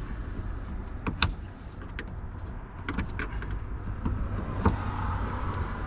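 Flathead screwdriver prying the top end fitting of a lift-gate gas strut off its ball stud: a string of sharp metal clicks and taps, the loudest about four and a half seconds in, over a steady low rumble.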